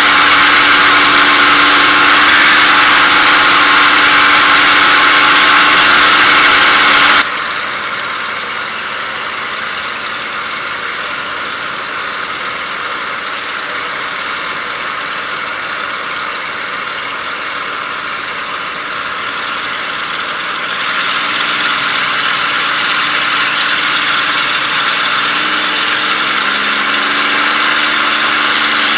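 P-51 Mustang's Packard Merlin V-12 engine and propeller running in flight, heard inside the cockpit as a loud, steady drone. About seven seconds in the sound drops suddenly to a lower level, comes back up past the twenty-second mark, and near the end the engine note rises in pitch.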